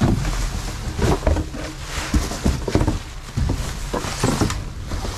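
Rummaging through a dumpster: irregular rustling of plastic bags and light knocks of discarded items being moved by hand.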